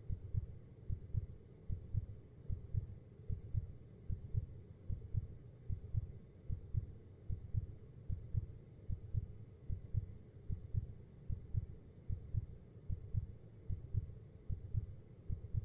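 Heartbeat sound effect: a steady, even lub-dub rhythm of paired low thumps with a faint hum underneath.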